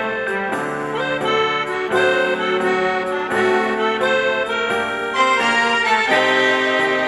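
Instrumental introduction of an enka backing track: a melody line over held chords, with a light steady percussion beat.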